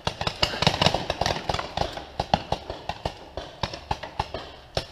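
Footsteps moving quickly through dry leaf litter and twigs: a run of irregular crunches and snaps, several a second.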